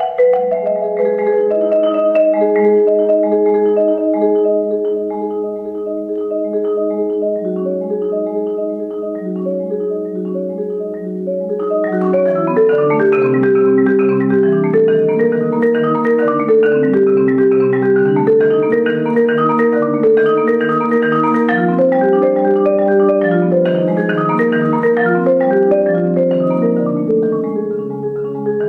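Marimba played with four yarn mallets: a slow piece of held chords in the middle and low register, which grows fuller and a little louder about twelve seconds in, with more notes and lower bass notes added.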